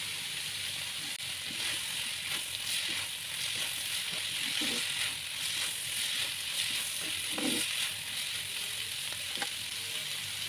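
A cauliflower and mushroom stir-fry sizzling steadily in a pan, with short clicks and scrapes of stirring now and then.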